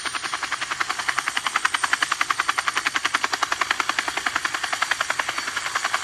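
Helicopter rotor chopping steadily at about ten beats a second.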